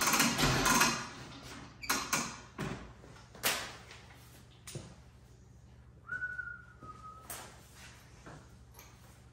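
An air hose being handled and dragged across a concrete shop floor: a loud rattling noise that stops about a second in, then scattered scrapes and knocks. About six seconds in there is a short whistling tone that steps down slightly in pitch.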